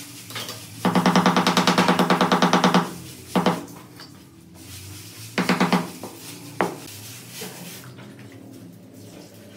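A hammer taps quickly on a large ceramic floor tile, about eight ringing taps a second for around two seconds. A single tap follows, then a short run of about four taps, and one last tap.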